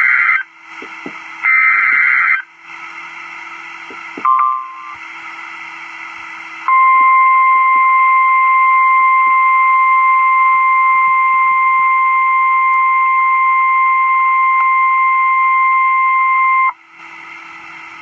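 NOAA Weather Radio alert start heard over a radio with background hiss: two buzzy bursts of digital SAME header data at the outset, a short beep about four seconds in, then the steady 1050 Hz warning alarm tone for ten seconds, cutting off sharply near the end. The tone signals that a warning, here a flash flood warning, is about to be broadcast.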